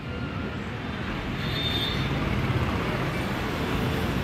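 Steady low rumble of street traffic that swells a little midway.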